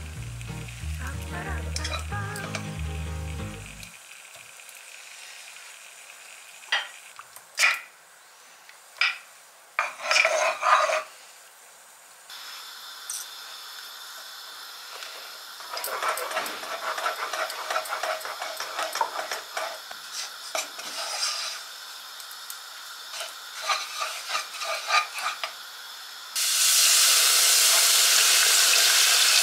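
Kitchen work sounds: a few sharp clinks of dishes and utensils, then food sizzling with stirring. Near the end a loud steady hiss sets in suddenly.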